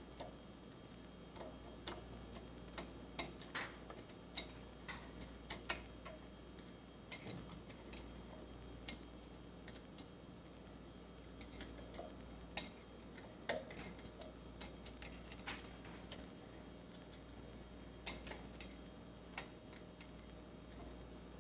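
Small steel valvetrain parts (valve spring retainers, keepers and tools) clicking and clinking as they are handled, in short, irregular sharp taps with pauses between, over a faint low hum.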